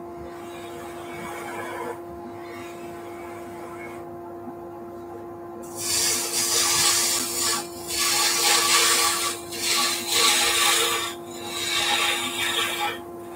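Turning tool cutting into a spinning wooden workpiece on a lathe: a hissing scrape that comes in several separate passes from about six seconds in, over a steady hum.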